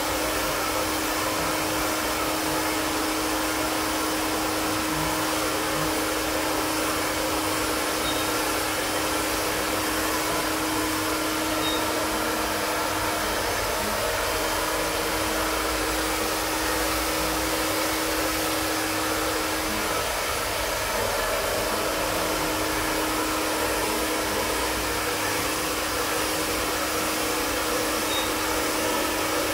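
Prife iTeraCare iTera-Pro terahertz blower running steadily: a hair-dryer-like fan rush with a steady low hum.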